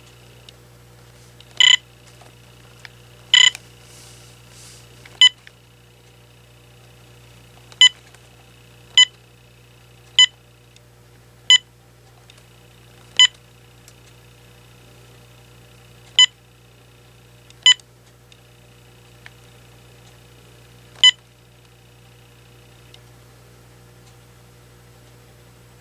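Short electronic key-press beeps from an AT&T 7720 cordless phone's keypad, about eleven single beeps spaced irregularly, one to three seconds apart, as buttons are pressed to step through its menu settings.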